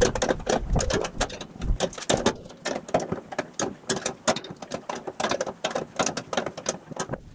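Ratchet wrench clicking in quick, irregular runs while tightening a bolt that mounts the body to the frame.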